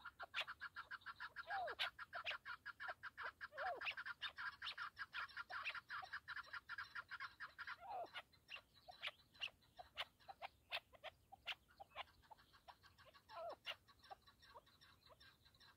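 Chukar partridges calling: a rapid run of clucking notes for about the first half, then slower scattered clucks, with a few short falling notes in between.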